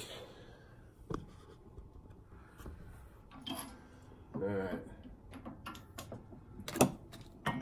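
Scattered light metal clicks and scrapes from the steel handle being worked at the bottle jack of a small hydraulic shop press, with one sharp metallic clink near the end.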